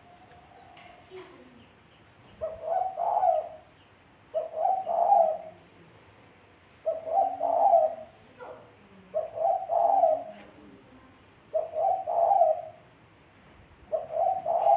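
Spotted dove (tekukur) cooing: six repeated coo phrases, each a short cluster of notes, coming about every two and a half seconds.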